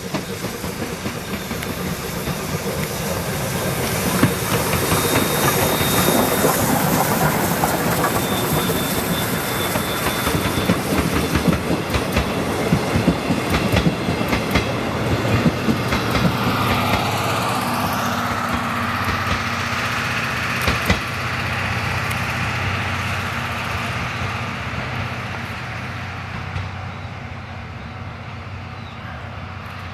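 Chichibu Railway's C58 steam locomotive and its passenger coaches passing: the sound builds to a peak, the wheels click over the rail joints as the coaches go by, then it fades as the train moves away.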